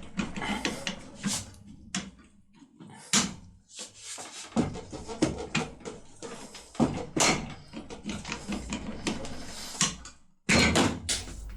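Steel force rod being levered back and forth in a lock cylinder, giving irregular metallic clicks, knocks and scrapes as the cylinder is worked loose from its press fit.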